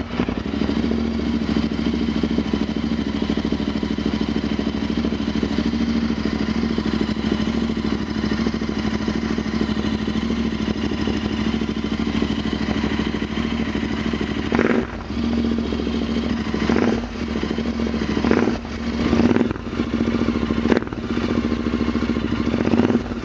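Royal Enfield Interceptor 650's parallel-twin engine running through twin AEW TE102 stainless steel megaphone silencers with the DB killer baffles removed, as a straight pass-through. It idles steadily, then is blipped several times in the last third. The note has a deep bass.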